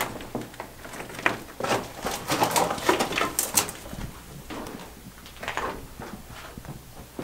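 Irregular footsteps crunching and scuffing on loose rock in a mine tunnel, with scattered sharp clicks and scrapes.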